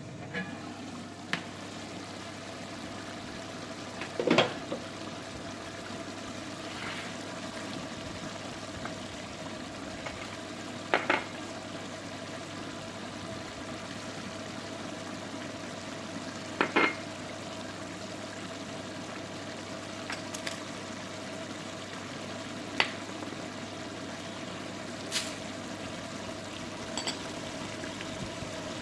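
Food sizzling and bubbling in a cooking pot over a steady hum, with a few sharp clinks of a utensil against the pot now and then.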